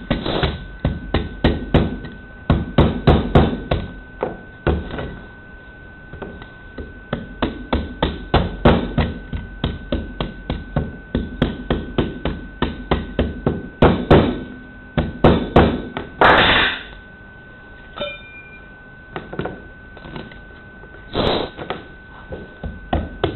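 Nylon-headed hammer giving the handle of a scraper runs of quick gentle taps, about three or four a second with short pauses, driving the blade under an ABS print stuck to a perforated 3D-printer base plate. A faint steady high tone runs underneath.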